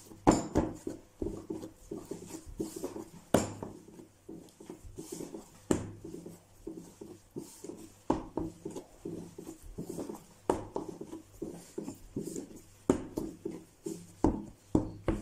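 Cannoli pastry dough being kneaded by hand on a wooden board: a thump of the dough against the wood about every two and a half seconds, with softer rubbing and pressing between.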